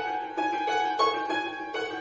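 Belarusian concert tsymbaly (hammered dulcimer) played solo: hammer strokes come about three a second, and each group of notes rings on under the next.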